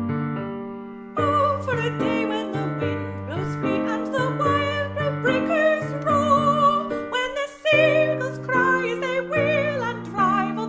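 A song with piano accompaniment: piano chords open it, and a singing voice with vibrato comes in about a second in over the piano.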